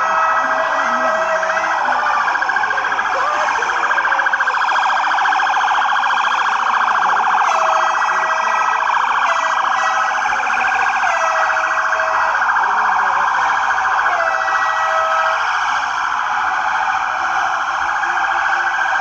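Several police car sirens wailing at once, their rising and falling pitches overlapping continuously, with a steady horn-like tone breaking in and out every second or two.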